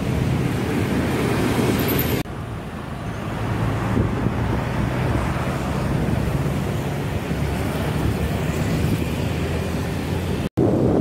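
Road traffic noise: motor scooter and car engines running along the road, heard from a moving bicycle as an even, steady rush. The sound changes abruptly about two seconds in and drops out for a moment near the end.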